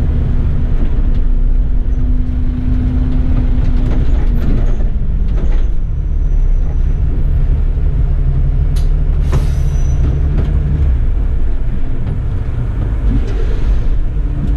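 City bus engine and cab noise heard from the driver's seat as the bus slows and stops at traffic lights. The engine note changes about four seconds in, and there is a short hiss of air about nine seconds in.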